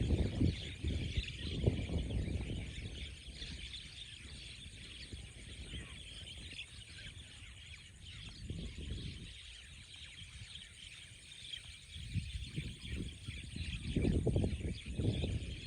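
A flock of birds chirping and chattering continuously in a dense mass of calls. Bouts of low, gusty rumble come in the first few seconds and again near the end, and these rumbles are the loudest part.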